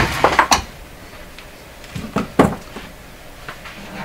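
Objects being handled and set down on a wooden workbench: a quick cluster of knocks and clatter at the start and another about two seconds in.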